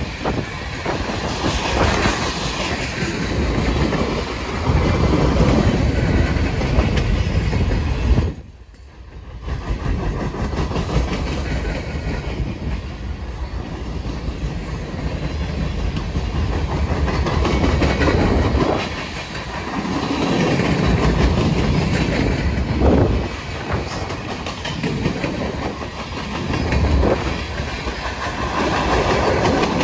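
Freight cars of a CSX manifest train rolling past close by: a steady rumble and clatter of steel wheels on rail. The sound drops away sharply for about a second roughly eight seconds in, then comes back.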